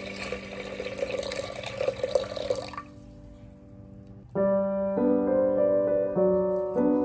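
A thin stream of water pouring into an aluminium pressure cooker over red lentils and chopped vegetables, splashing, then stopping about three seconds in. Soft piano music plays underneath and comes in louder with new notes about four seconds in.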